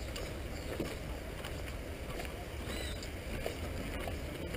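Wind rumbling on a body-worn camera's microphone outdoors, a steady low noise, with a few faint short high chirps over it.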